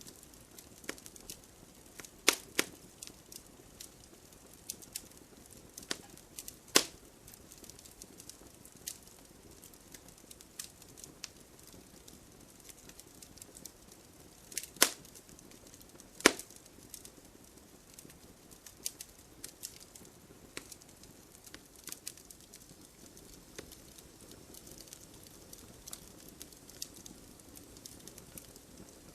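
Wood fire in a fireplace crackling, with irregular sharp pops from the burning logs, a few much louder than the rest, over a faint steady hiss of the flames.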